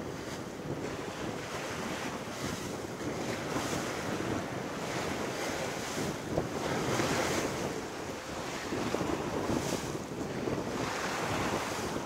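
Sea water rushing and splashing along the hull of a sailing yacht under sail, with wind buffeting the microphone. The rush swells and eases every second or two as the bow meets each wave.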